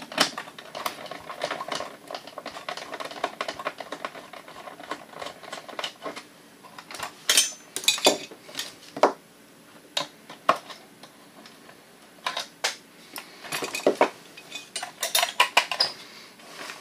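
Irregular sharp metal clicks and clinks from a screwdriver and the sheet-metal parts and screws of a partly dismantled slide projector being handled, with busier clusters of clatter about halfway through and near the end.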